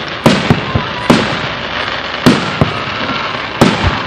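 Fireworks going off: a quick run of sharp bangs, about seven in four seconds, with steady noise between them. The bangs come in pairs, one pair just after the start, one a little past the middle, and one near the end.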